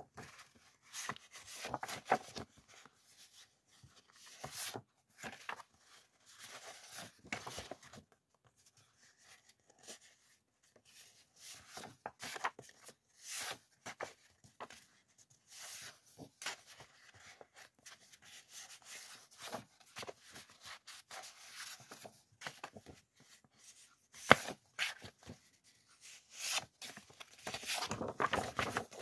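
Sheets of printed background paper rustling and sliding against each other as they are handled and flipped through, in irregular bursts with short pauses, with one sharper snap a little after 24 seconds in.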